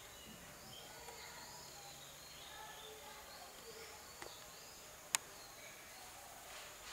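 Faint background of birds chirping, many short scattered calls, over a steady high-pitched thin tone. A single sharp click about five seconds in.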